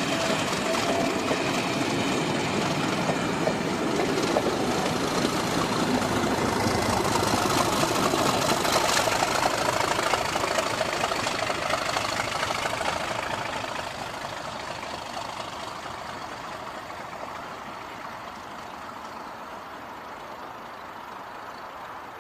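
Class 37 diesel locomotive's English Electric engine running as it hauls a short rake of coaches past and away. The engine and wheel noise is loud at first, then fades steadily over the second half as the train recedes.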